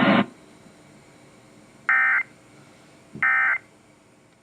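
Emergency Alert System end-of-message signal: two short bursts of SAME digital data tones about a second and a half apart, marking the end of the alert broadcast.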